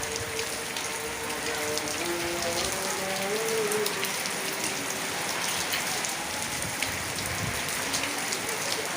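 Heavy rain pouring steadily, with many drops ticking on hard surfaces. A faint wavering pitched sound runs through the rain for about the first four seconds.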